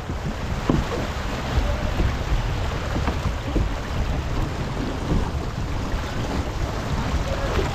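Wind buffeting the microphone and water rushing along the hull of a Farr 280 racing sailboat under way downwind, as a steady noise. A few faint knocks are heard from the deck.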